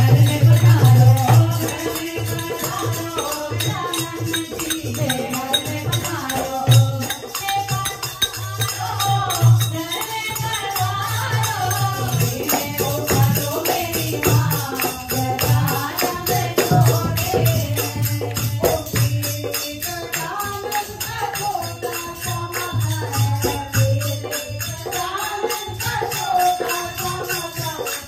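Women singing a Hindu devotional kirtan, a lead voice through a microphone with others joining, over a fast, steady rattling beat from handheld plastic clappers and hand-clapping.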